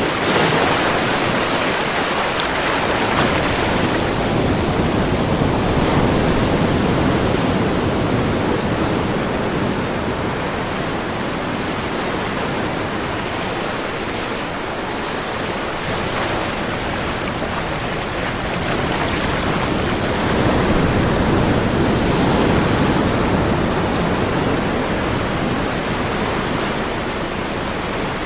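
Ocean surf: a continuous wash of waves that swells and eases slowly, louder in the first few seconds and again about two-thirds of the way through.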